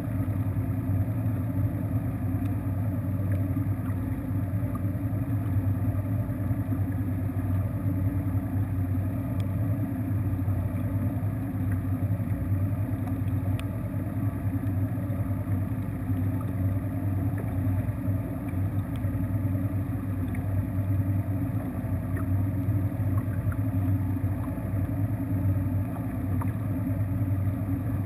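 Bass boat's outboard engine idling steadily, a low, even hum with no change in speed.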